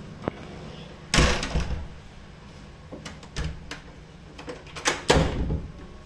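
A door knocking shut twice, about four seconds apart, with a few lighter clicks and rattles in between.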